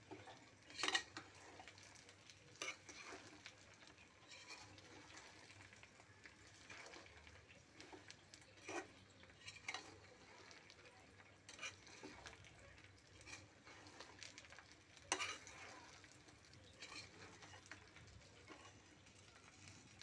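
A utensil stirring whole red chilies and garlic cloves in oil in a pan: faint, irregular scrapes and clinks every second or two, the loudest about a second in and about fifteen seconds in.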